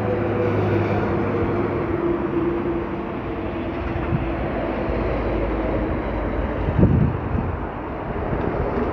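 Street traffic noise: a vehicle engine hum that fades over the first few seconds, then steady traffic rumble with a brief louder swell about seven seconds in.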